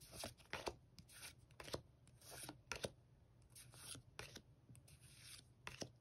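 Pokémon trading cards slid and flipped one by one in the hands: faint, irregular swishes of card stock rubbing over card, with light taps.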